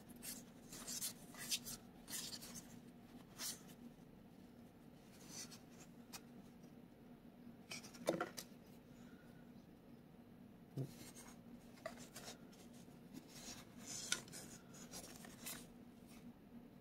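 Trading cards being handled: faint irregular swishes and light ticks as cards slide against each other and are flicked and laid on a table.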